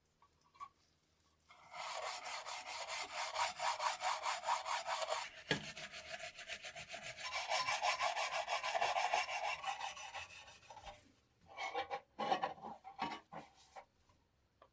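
Quick, rhythmic back-and-forth strokes of hand abrasion, such as sanding or filing, rubbing against a surface for several seconds. A brief pause comes partway through, and a few short, separate strokes follow near the end.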